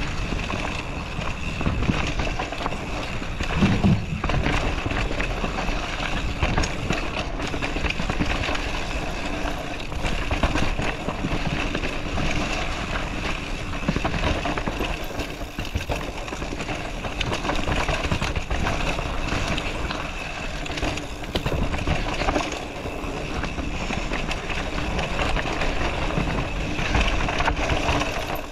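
Mountain bike descending a dirt forest singletrack: steady tyre and rushing noise with frequent rattles and knocks as the bike runs over roots and bumps.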